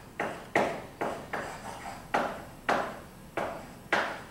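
Chalk on a blackboard: about eight short, sharp chalk strokes in quick succession, each starting suddenly and fading quickly.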